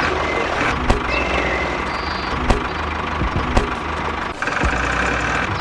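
A small machine running steadily, with scattered sharp clicks. It drops out briefly about four seconds in and then resumes.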